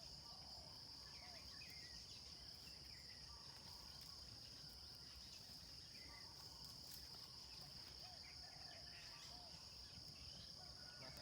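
Faint, steady high-pitched drone of insects, with a few faint short chirps scattered through it.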